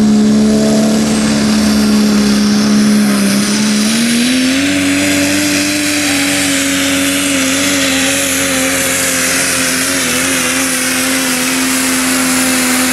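Super stock diesel pulling truck's turbocharged engine at full throttle, hauling the sled under load. One steady high engine tone over a strong hiss, climbing in pitch about four seconds in and then holding.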